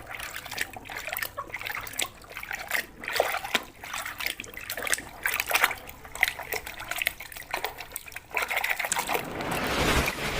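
Water splashing and trickling as a toy is washed by hand in a basin of muddy water, with irregular small splashes and a steadier rush of water near the end.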